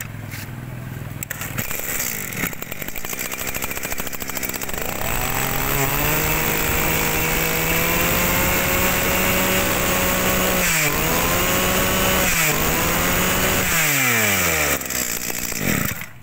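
Kioritz 260 two-stroke brush cutter engine running. It starts at a low, uneven idle, is throttled up about five seconds in to a steady high rev, and dips sharply twice. Near the end it winds down and falls quiet.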